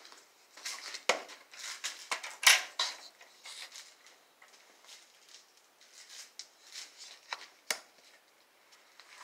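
Irregular clicks, taps and short rustling scrapes of handling and moving about, with the sharpest knock about two and a half seconds in and another single click near the end.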